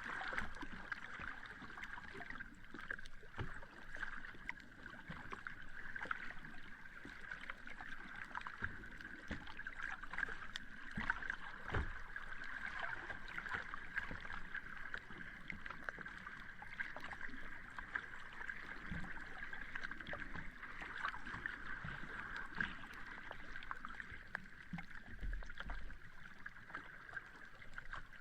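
Small sea waves lapping and washing at the shore: a steady watery wash with many small crackles.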